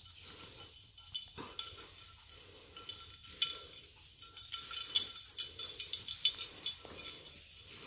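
Footsteps crunching through dry leaf litter, about two steps a second, with light metallic jingling and clicking over them.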